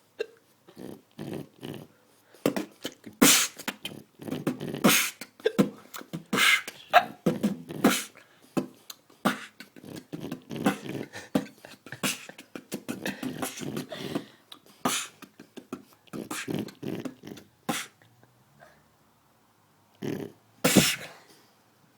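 Human beatboxing: mouth-made kick, snare and hi-hat sounds in a steady rhythm, layered over a looped recording of a man snoring. The beat stops for about two seconds near the end, then starts again.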